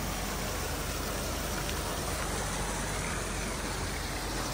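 Steady splashing and rushing of water from fountain jets and a small rock cascade pouring into a garden pond.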